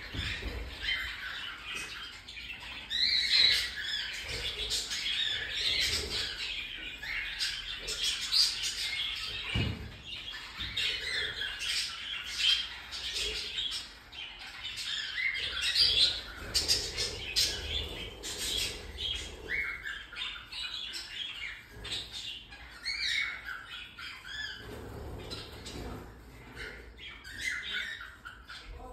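Cockatiels chirping and squawking in a continuous run of overlapping short calls.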